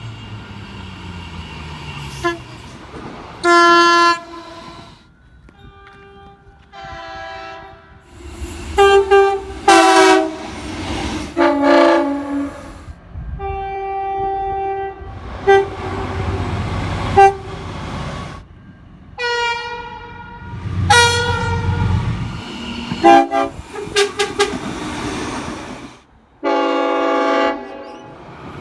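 A string of train horn blasts, edited one after another. Each blast is a chord of several notes, some short toots and some held for a second or two, with the low rumble of moving trains beneath some of them.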